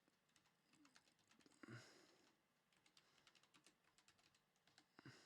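Near silence, with faint scattered clicks and a brief soft rustle a little under two seconds in, from trading cards being handled.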